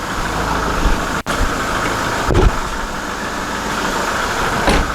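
Kubota tractor's diesel engine idling steadily, with a short low thump about halfway through.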